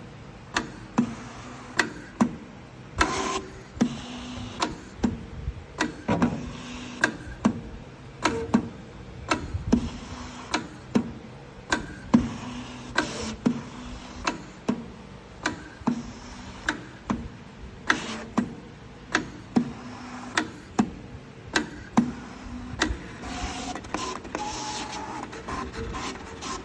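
SF-350MAX digital cutting and creasing plotter running, creasing 350 g ivory card with its electric creasing tool: short whirs of the carriage motors broken by sharp clicks about once or twice a second.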